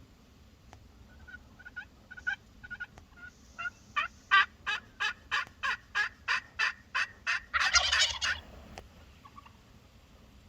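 Wild turkeys calling: a run of about a dozen evenly spaced yelps, roughly three a second, followed by a tom's rattling gobble lasting about a second.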